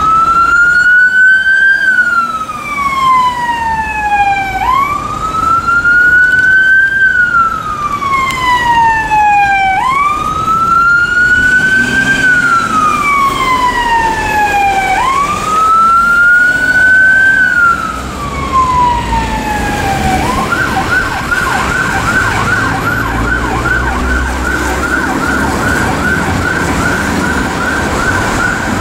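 Mercedes Sprinter compact fire engine's siren sounding a slow wail, rising and falling about every five seconds, four times. About twenty seconds in it switches to a fast yelp. Traffic rumble runs underneath.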